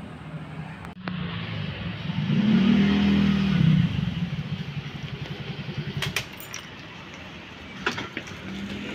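A motor vehicle's engine going past, loudest a few seconds in, its pitch rising then falling as it passes. Later there are a few sharp clicks.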